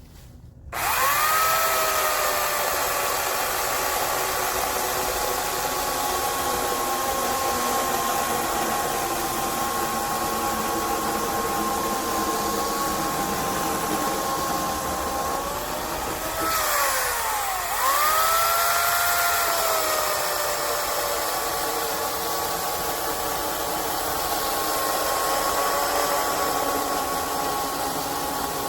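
Craftsman CMECS600 12-amp electric chainsaw's motor starting up and running at a steady high whine. A little past halfway it winds down in pitch as the trigger is let go, then spins straight back up and runs on.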